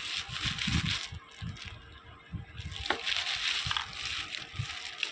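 Thin plastic bag wrapping crinkling and rustling as it is handled on a kite spool, with irregular soft handling thumps.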